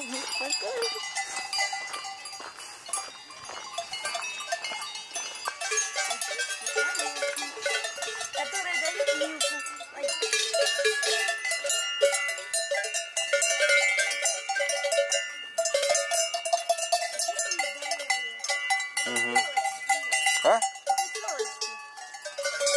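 Many cowbells on a herd of cattle clanging without pause as the cows walk past close by, a dense jangle of overlapping bell tones.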